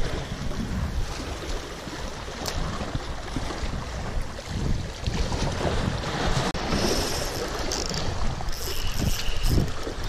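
Wind buffeting the microphone in gusts over the wash of sea waves. In the last few seconds a spinning reel is cranked, giving short high whirs.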